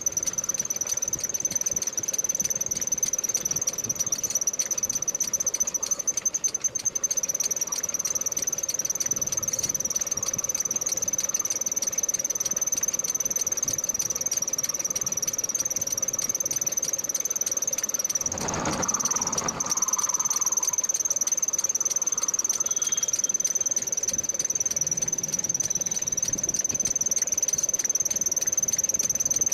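Lathe turning a steel rotavator axle, with a steady high-pitched squeal from the cut. A brief rushing noise interrupts it about two-thirds of the way through.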